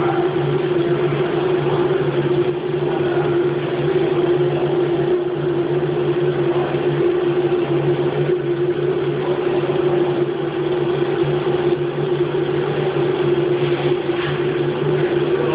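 Haas CNC milling machine running with a steady hum.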